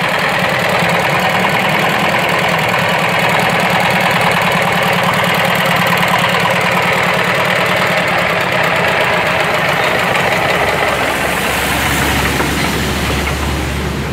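Jiangfa 10 hp single-cylinder horizontal diesel engine running steadily at idle, with a rapid knocking firing beat. A deeper low hum joins in about ten seconds in.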